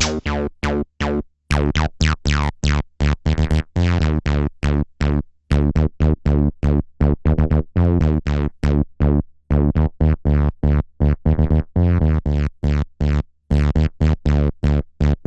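Behringer TD-3 analog bass synthesizer playing a sequenced acid bassline of short, staccato notes, about four a second, with a few gaps. Each note is bright at its start and quickly darkens as the resonant filter closes.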